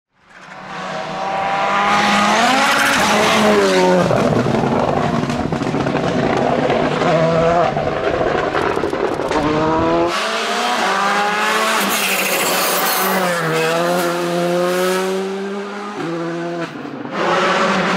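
Rally cars driven flat out: engines revving hard and shifting up and down through the gears, the pitch climbing and dropping again and again, in several clips cut one after another. The sound fades in over the first second.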